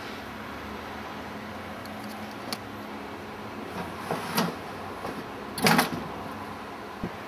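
Stainless steel coin tray of an Aristocrat slot machine being handled, with coins in it: a few sharp metal clicks, then a louder short rattle of metal and coins a little before the end.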